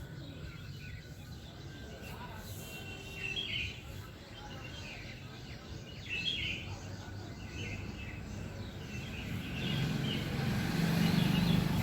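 Ujjayi breathing: slow breaths drawn and let out through a narrowed throat. Small birds chirp every second or two, and a low rumble swells near the end.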